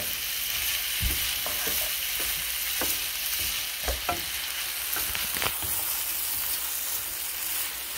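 Shrimp fried rice sizzling in a skillet as it is stirred and turned with a spatula, a steady hiss broken by scattered scrapes and taps of the spatula against the pan.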